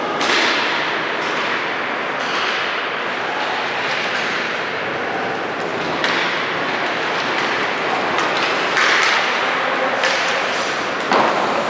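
Basketball game noise in a gym: a steady din of crowd and players, with occasional thuds from the ball.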